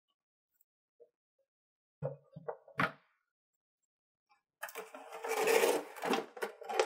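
Cardboard figure box being handled: a few light knocks about two seconds in, then from about four and a half seconds a louder continuous scraping and crinkling as the clear plastic blister tray slides out of the cardboard box.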